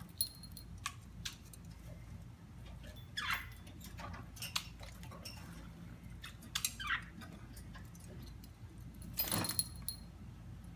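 Budgies giving a few short chirps and squawks, amid scattered light clicks and taps.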